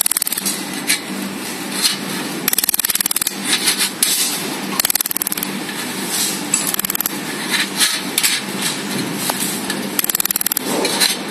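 Laser welding machine firing in short runs of rapid ticks, a run every second or two, as it spot-welds the seam of a metal channel letter, over a steady low machine hum.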